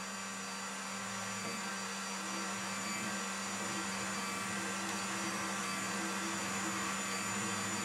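Electric drive motor of an EV3 portable boring bar running steadily, turning the bar with the feed clutch engaged; a steady hum that grows slightly louder toward the end.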